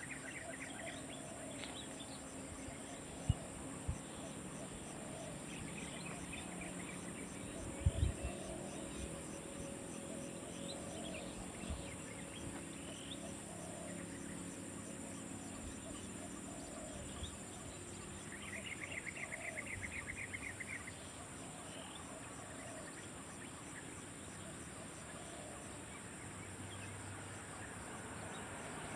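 Steady high-pitched insect buzz with scattered bird chirps. Just past the middle, a rapid rattling trill lasts about two seconds. A few sharp knocks are heard, the loudest about eight seconds in.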